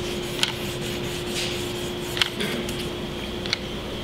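Handling sounds of a hot glue gun and foam parts on a wooden workbench: three short sharp clicks, the loudest in the middle, and a faint rub, over a steady hum of room noise.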